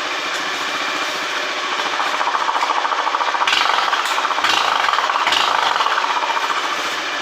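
Motorcycle engine running with a fast, rasping buzz from a beer-can noise-maker rigged to the bike. The buzz grows louder from about two seconds in and eases off near the end.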